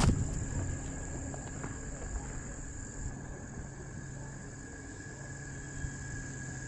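Insects trilling steadily outdoors: a continuous high, even chirring with a low steady hum beneath it, after a brief rustle dies away at the start.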